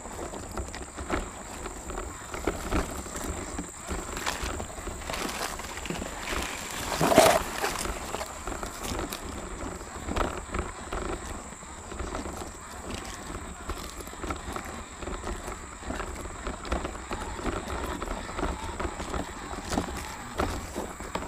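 RC rock crawler heard from on board, its tires and chassis knocking and clattering irregularly over loose flat creek-bed stones, over a steady high whine. A louder thump comes about seven seconds in as it lurches over a rock.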